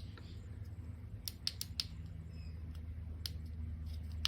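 Small sharp plastic clicks and taps as a car alarm remote's case and button are handled and pressed together, a cluster of them a little after a second in and more later, over a steady low hum.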